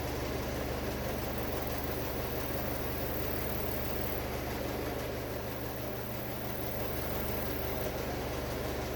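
A steady, unchanging low hum of a running engine or motor at idle.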